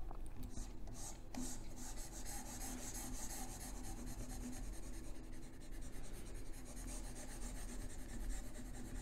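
A stylus scribbling back and forth on a touchscreen while shading in an area, a faint continuous rubbing and scratching, over a steady low electrical hum.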